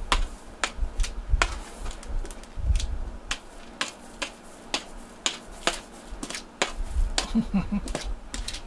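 Cat scratching granular litter in a plastic litter box to cover its stool: a run of sharp, scraping clicks, about two a second.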